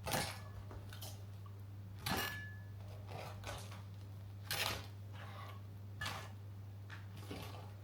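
A few short, soft knocks and clinks of kitchenware being handled, about five spread over several seconds, over a steady low hum.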